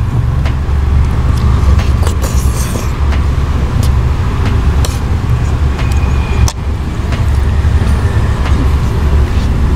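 Steady low rumble of a car's idling engine heard inside the cabin, with a few sharp clicks of metal spoons against a plastic tray.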